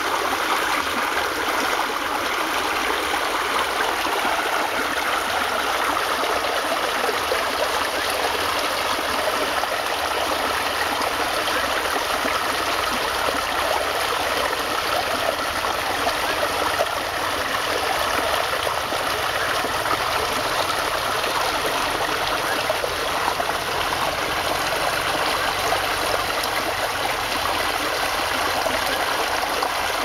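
Shallow rocky stream rushing and splashing over stones in small cascades: a steady, unbroken rush of water.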